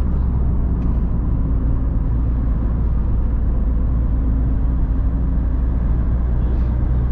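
Chevrolet Cruze at highway speed heard from inside the cabin: a steady low drone of engine, tyre and road noise, with no change in pitch.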